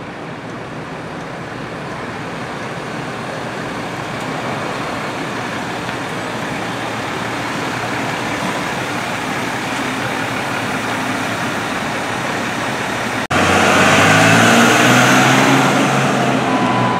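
Steady street traffic noise with an ambulance's engine running nearby, no siren. About three-quarters of the way through the sound suddenly gets louder as the Ram heavy-duty ambulance's engine and tyres pass close by, pulling away.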